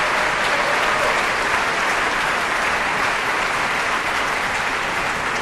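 Audience applauding, a steady sustained clapping from a large crowd.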